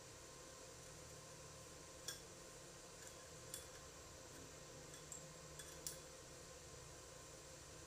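Near silence with a faint steady hum and a few light, sharp clicks scattered through it.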